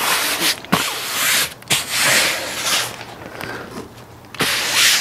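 Heavy canvas seat-back cover rustling and rubbing against the seat as it is pulled on and smoothed down by hand, in several long swishing strokes that drop away briefly about three seconds in.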